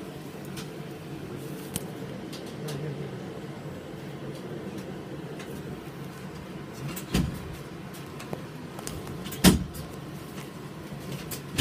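Inside a tram standing at a stop: the car's steady low hum with scattered small clicks, and two sharp thumps, about seven and nine and a half seconds in, the second the loudest.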